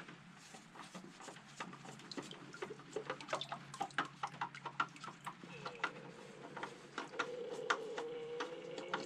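Old engine oil dripping from a just-removed motorcycle oil filter and its housing into a drain bowl of oil: faint, irregular drips that come more often as it goes on. A faint steady tone joins about halfway through.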